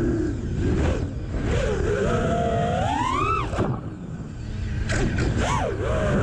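FPV racing quadcopter's brushless motors and propellers whining over rushing air noise, the pitch swinging with the throttle: a long climb to a peak about three seconds in that drops away sharply, then several quick rising and falling swoops near the end.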